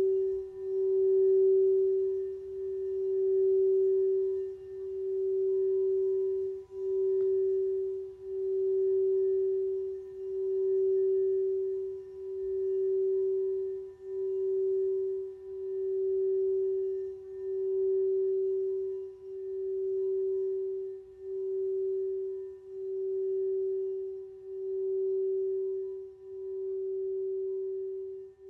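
Singing bowl sounding one steady tone with faint higher overtones, its loudness swelling and dipping about every two seconds.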